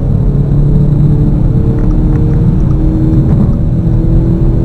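The flash-tuned Audi SQ5's 3.0-litre twin-turbo V6 diesel pulling hard under full acceleration in fifth gear, heard inside the cabin, its revs climbing slowly.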